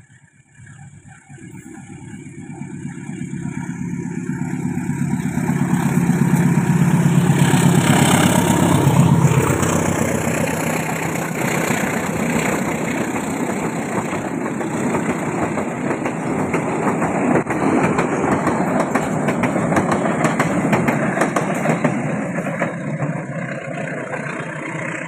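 A diesel-hauled passenger train approaching and passing close by. The locomotive's engine hum builds to its loudest about six to nine seconds in, then the carriages clatter and rumble past on the rails, easing off near the end as the train moves away.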